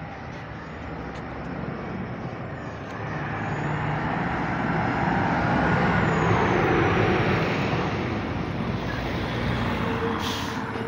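A large lorry with a trailer passing close by on the street, its engine and tyre noise growing louder to a peak about six seconds in and then fading as it goes by. A brief hiss and a steady tone come in near the end.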